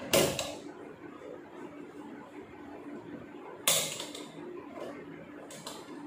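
Two sharp clattering knocks about three and a half seconds apart, with a few lighter clicks near the end: hard plastic and metal parts being handled while a top-load washing machine's drain motor is fitted to its base.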